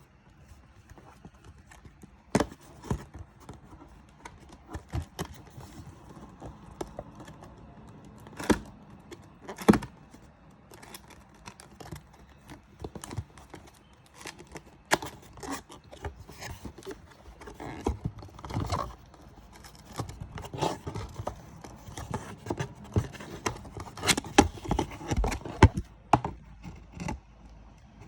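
A product box being opened and handled by hand: irregular knocks, taps and scrapes of the packaging, some sharp and loud.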